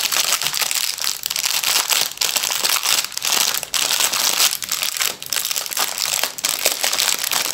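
Clear plastic packaging crinkling continuously as it is handled and unwrapped from around small bags of square diamond-painting drills, with frequent sharp crackles.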